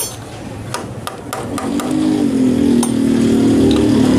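Power tool running on the 8 mm bolts of a Honda CD70's timing sprocket, with a few sharp clicks first and then a steady whine from about a second and a half in.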